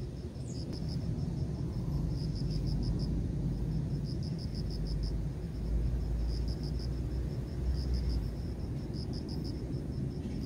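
An insect chirping in trains of rapid, high pulses, a train every second or two, over a steady low rumble.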